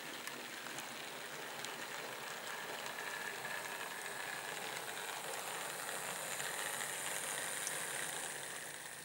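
Model railway train running past on the track: a steady rattle of the wagons' wheels over the rails with a few faint clicks. A thin whine from the locomotive's electric motor grows louder toward the end as the engine comes past.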